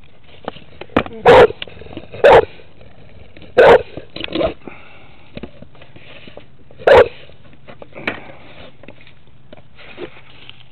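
A pit bull-type dog close to the microphone making short, loud sounds, three in the first four seconds and one about seven seconds in.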